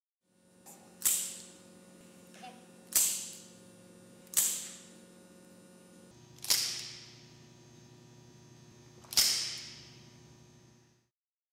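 Expandable baton snapped open five times, each a sharp metallic clack with a short ringing tail, with a couple of fainter clicks in between. A steady electrical hum lies underneath.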